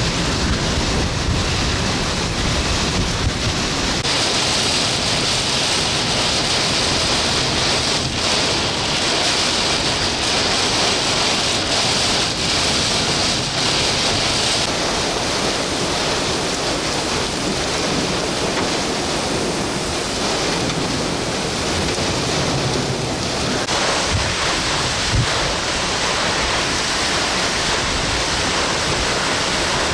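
Heavy wind-driven rain and strong wind gusts from a severe thunderstorm, with wind buffeting the microphone; a steady, loud rush whose tone shifts abruptly a few times.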